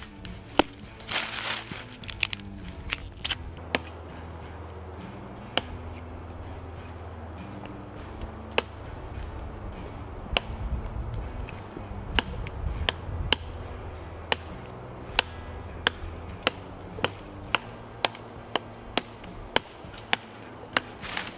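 Sharp knocks of a baton striking the spine of a Taxus Habilis bushcraft knife as it is batoned through wood, about one blow a second and coming closer together in the second half, with a brief rasping burst about a second in. Background music plays underneath.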